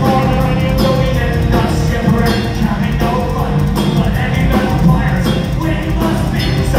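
Heavy metal band playing live at full volume: distorted guitars, drums and keyboard under a singer, heard from the audience high in a large hall.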